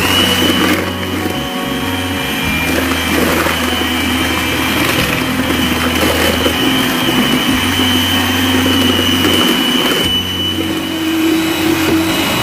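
Electric hand mixer running, its beaters whipping eggs and sugar in a glass bowl. The motor gives a steady high whine that changes to a lower hum about ten seconds in.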